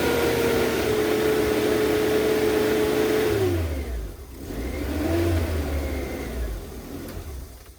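Truck engine held at high revs, dropping back about three and a half seconds in. It revs up once more, then falls away near the end.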